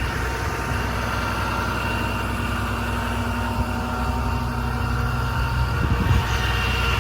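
The 2010 Ram 5500's 6.7 Cummins diesel engine idling steadily, with a slightly louder, rougher patch about six seconds in.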